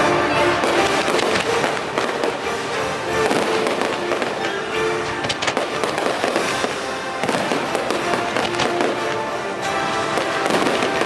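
Fireworks bursting in rapid, repeated bangs over loud orchestral show music played through the show's speakers.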